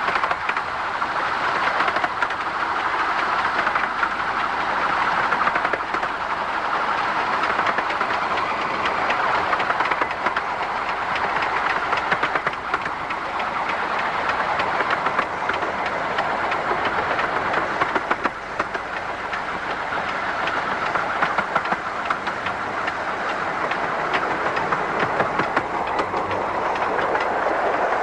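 RH&DR No.5 Hercules, a 15-inch gauge 4-8-2 steam locomotive, running along the line. It makes a steady rush of engine and wheel-on-rail noise with fine rapid clicking, dipping briefly about two-thirds of the way through.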